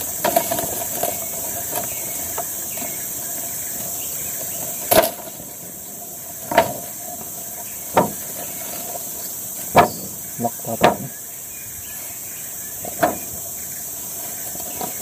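Steady high insect chorus of cicadas or crickets in tropical undergrowth, with about seven short sharp cracks and rustles spread through it as someone walks through grass and brush.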